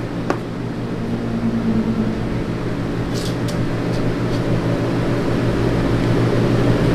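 Steady mechanical hum, as from a fan or room ventilation, with a sharp click about a third of a second in and a few faint ticks around three seconds in.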